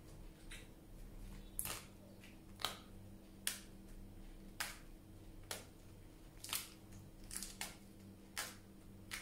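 Crisp iceberg lettuce leaves torn apart by hand, a short crackling snap about once a second.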